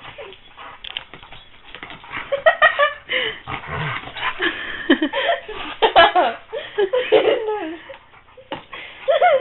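A big puppy vocalizing excitedly in rough play, a string of short rising and falling cries from about two seconds in, with scattered knocks and scuffles.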